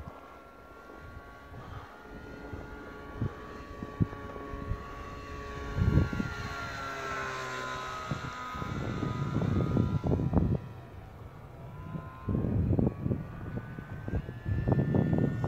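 RC model airplane's motor and propeller whining in flight, the pitch sweeping up and then down as it passes about halfway through. Low gusts of wind buffet the microphone in the second half.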